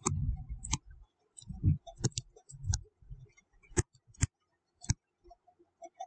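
Irregular sharp clicks and a few soft low thumps from a stylus tapping and dragging on a writing tablet during handwriting.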